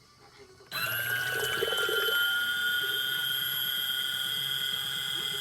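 Mini washing machine switching on under a second in: its small motor runs with a steady high-pitched hum while the water churns and sloshes in the tub.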